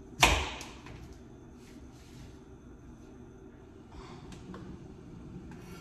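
A single sharp bang, something hard striking a hard surface, with a short ringing decay about a quarter second in; faint small knocks follow near the end.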